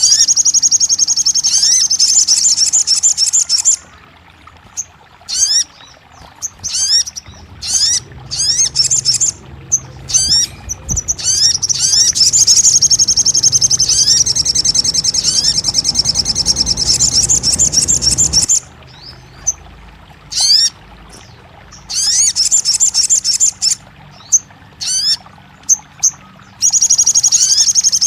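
Sogon (crimson sunbird) singing: long, rapid, high-pitched trills broken by pauses filled with quick sharp rising chirps. A low rushing noise sits underneath from about a quarter of the way in until about two-thirds through.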